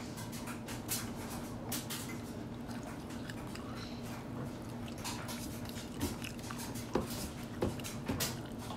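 Baby chewing food with her fingers in her mouth: soft wet mouth clicks and smacks, with a few sharper clicks in the last few seconds. A steady low hum sits underneath.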